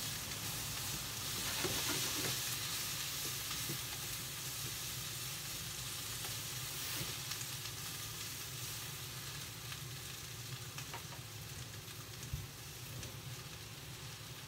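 Shredded cabbage sizzling as it stir-fries in a frying pan, with a spatula stirring and lightly tapping against the pan. The sizzle is a little louder about two seconds in and slowly dies down toward the end. The cabbage is still frying on its own before the sauced pork goes in.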